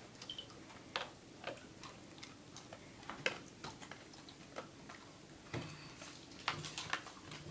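Scattered light clicks and taps at irregular intervals from a toddler's hands handling a stainless steel dog bowl in a raised feeder stand.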